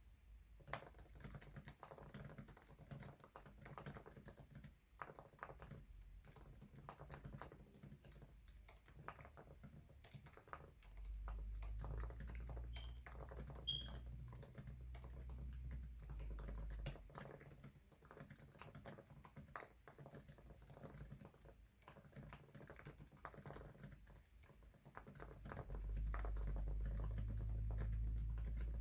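Fast, continuous typing on a computer keyboard during a typing-speed test, quick key clicks in an uneven stream. A low rumble joins it twice, about eleven seconds in and again near the end, and is louder than the clicks while it lasts.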